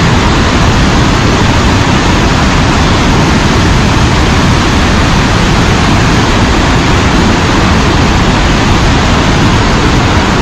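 Loud, steady rush of water, a waterfall or rapids heard up close.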